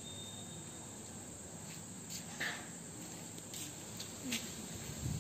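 Quiet night background with a steady insect hum, and a few soft scuffs and clicks as a puppy tugs and bites at a cloth on a concrete floor.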